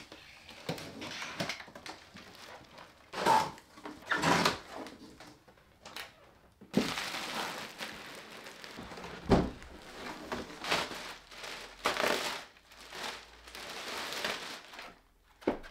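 A cardboard shipping box being unpacked. Tape is slit and the flaps are opened, then the plastic wrapping around the foam packing crinkles as it is pulled open, in irregular rustles and scrapes.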